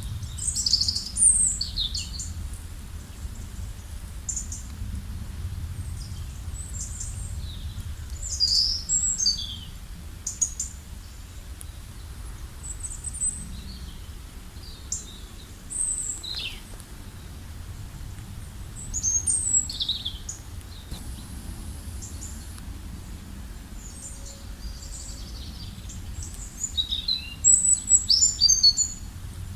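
Songbirds singing and calling in short, high, quickly gliding phrases that come in clusters, loudest about a second in and again near the end, over a steady low rumble.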